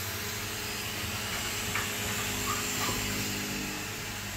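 Steady low mechanical hum, with a few faint knocks and clicks in the second half.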